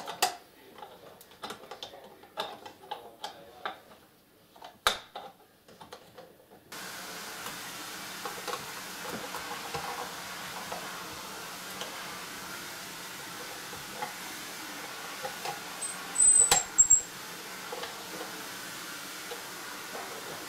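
Clicks and knocks of the plastic end cover of a Kenmore Ultra Stitch 12 sewing machine being handled and fitted by hand. A steady hiss begins suddenly about a third of the way in, and two loud knocks come a little after three-quarters through.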